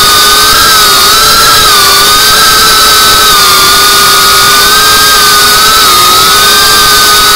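Geprc CineLog35 cinewhoop in flight: the high, steady whine of its brushless motors and ducted propellers, heard from the drone's onboard camera, dipping and rising slightly with throttle changes.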